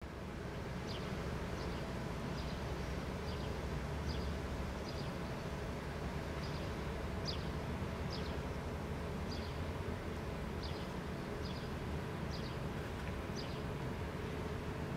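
A small bird repeats short, high chirps that fall in pitch, roughly once a second, over a steady low background rumble.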